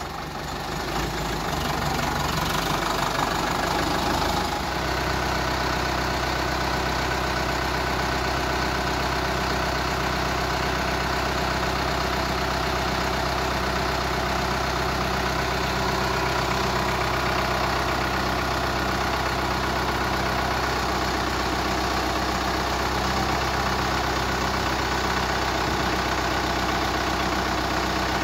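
Sonalika tractor's diesel engine running steadily while its hydraulics tip the trailer body up. The engine note steps up about four seconds in and then holds steady.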